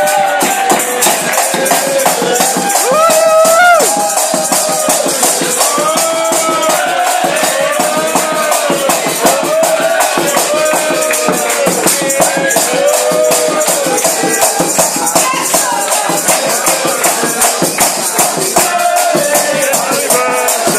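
Lively music with a fast, steady rattling beat under a melody, with restaurant chatter underneath.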